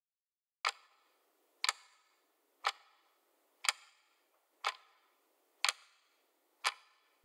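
Clock ticking: seven sharp ticks, evenly spaced one second apart.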